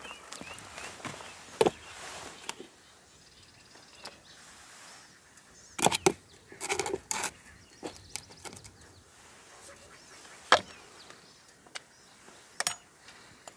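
Camp coffee gear being handled: clinks and knocks of a coffee press and its parts being set on a mug and fitted together. There are a few single sharp knocks and a quick cluster of clatter about six to seven seconds in.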